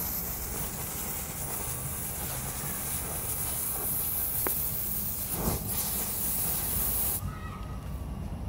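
A lit fuse and a pile of granulated sulfurless black powder, made with sugar in place of sulfur, burning with a steady hiss. There is a short louder puff about five and a half seconds in, and the hissing cuts off about seven seconds in.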